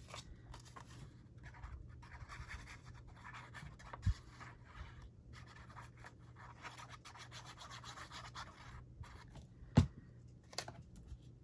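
Paper scratching and rubbing as a piece of cardstock is glued onto a card base, with a light knock about four seconds in and a sharper one near the end.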